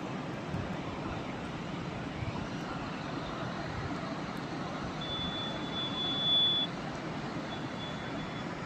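Flooding mountain stream: a steady roar of rushing water. A high steady tone sounds about five seconds in for a second and a half, then again fainter near the end.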